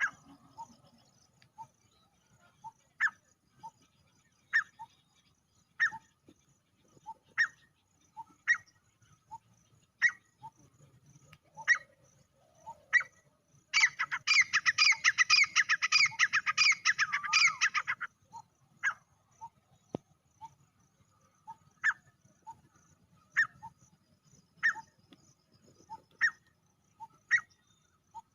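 Male grey francolin calling: short, sharp single notes about every second and a half, broken in the middle by a loud, fast run of ringing calls lasting about four seconds.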